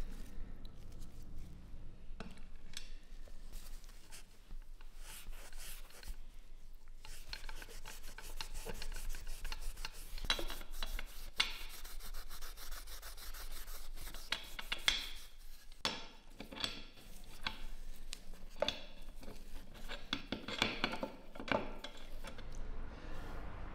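Hand scrubbing of a wet K98 Mauser rifle bolt: irregular rubbing strokes with small metal clicks, busier in the second half.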